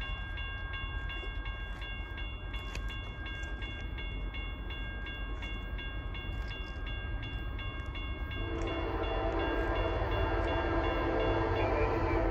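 Distant CSX freight locomotive horn, starting about two-thirds of the way in and held as the train approaches. Before it, a high electronic dinging repeats about twice a second.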